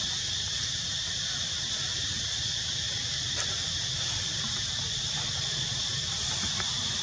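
Steady high insect drone in the background, with a constant low rumble underneath and a few faint ticks.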